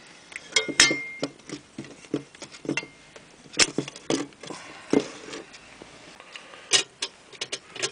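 Irregular light metal clicks and taps from a wire pot stand being handled and set over a small gel-fuel camping stove, one tap ringing briefly about a second in.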